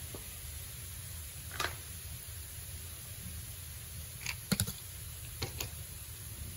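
A few short, light clicks over a steady low room hum: one early, a quick cluster of three a little past the middle, then two more.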